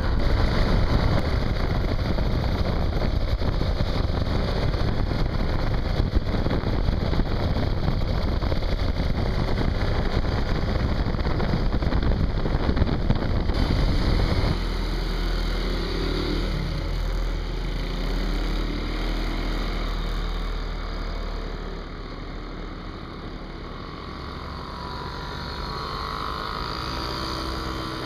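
Small moped engine running on the move, mixed with heavy wind rush on the microphone. About fourteen seconds in it changes abruptly to a quieter roadside sound of small moped engines puttering past, their pitch rising and falling as they go by.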